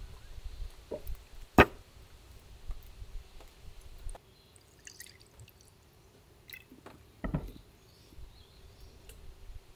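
A wooden bowl set down on a wooden table with a sharp knock, then makgeolli poured into it from its bottle, with small trickling and dripping ticks. A second knock comes about seven seconds in.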